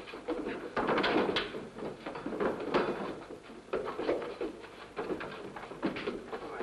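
Two men fist-fighting: irregular thuds and knocks of blows and scuffling, heaviest about a second in and again near three seconds.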